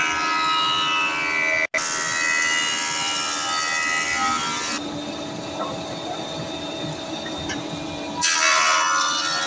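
Lazzari thickness planer running with wooden boards fed through, its cutterhead giving a loud whine of several stacked tones that sag in pitch as the cut loads it. Near the end a new board bites in with a sharper, louder whine. The sound drops out for an instant about two seconds in.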